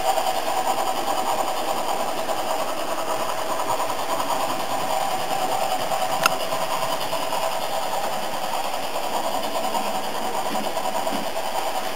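Märklin model BR 10 steam locomotive running on the layout, its digital sound decoder playing steady, evenly pulsing steam-engine running sound over the whir of the model's motor. A single sharp click about six seconds in.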